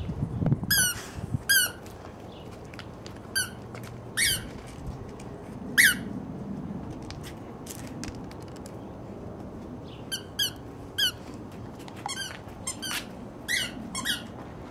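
Squeaky dog toy squeaking about a dozen times at uneven intervals as a Dogo Argentino puppy bites down on it. Each squeak is short and high-pitched.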